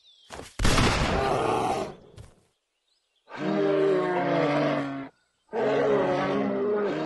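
Bears roaring and grunting while mating. A short, rough roar comes about half a second in, then two long, wavering roars follow, at about three seconds and again from about five and a half seconds.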